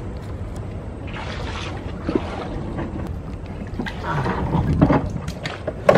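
Small single-cylinder engine of a wooden river boat running steadily at low speed, with a few short rustles and sharp knocks near the end.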